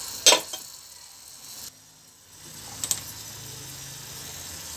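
Stainless steel lid set down on a nonstick frying pan with one sharp metallic clink, over faint sizzling of raw banana cubes dry-frying; a lighter clink follows near three seconds.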